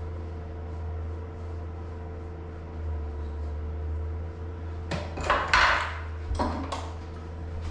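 A steady low hum, and about five seconds in a short run of clinks and knocks as small tools and containers are handled among the clutter on a floor.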